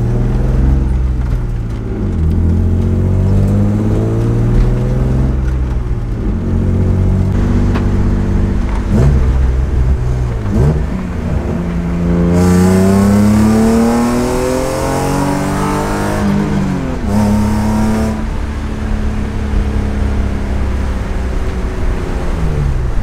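BMW E36 328i's M52 2.8-litre straight-six, running catless through a cheap muffler, accelerating hard through the gears, heard from inside the cabin. The pitch climbs with each pull and drops at each shift, and the longest, highest rev comes a little past halfway. On the fresh RK Tunes flash it revs out all the way, with few crackles or burbles.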